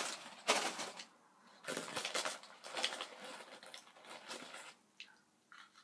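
Crunchy snack chips (Funyuns) being bitten and chewed close to the microphone: irregular crackling crunches that die away about five seconds in.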